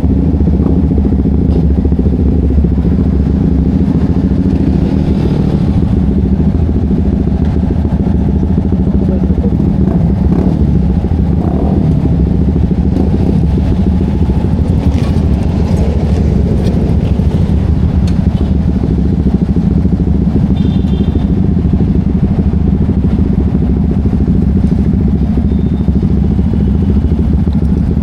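Yamaha XSR motorcycle fitted with an aftermarket Vmax canister exhaust, its engine running at a steady idle with no revving.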